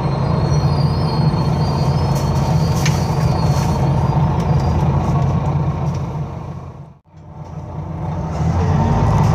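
Interior noise of a Wright Eclipse Gemini 2 Volvo B9TL double-decker bus under way: the steady low drone of its Volvo D9B diesel with road noise and a few light rattles. About seven seconds in the sound fades almost to nothing and then swells back.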